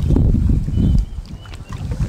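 Wind buffeting the microphone, a low rumble that is loudest in the first second and then eases.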